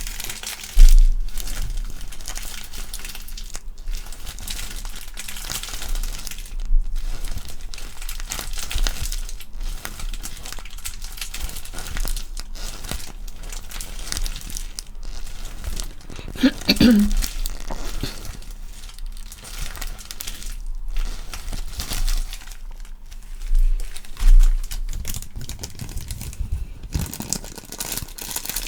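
Close-up crinkling and crumpling, an ASMR trigger, with many small crackles, some low thuds, and a brief squeak about halfway through.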